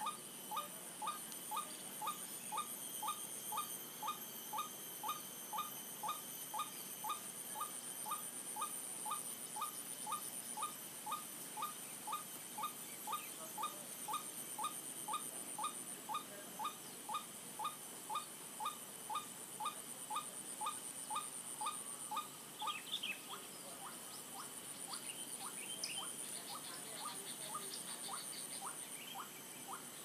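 White-breasted waterhen call: a long run of short, identical notes at about two a second, stopping about two-thirds of the way through. A few scattered higher chirps follow near the end, over a steady high-pitched whine.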